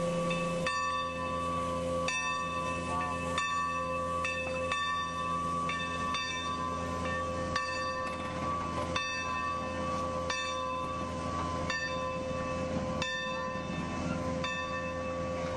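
Steam locomotive bell on the Baldwin No. 45 2-8-2 Mikado ringing slowly and evenly, about one stroke every second and a half, each stroke ringing on into the next. It is rung as the locomotive backs toward the passenger cars to couple, over a steady low rumble.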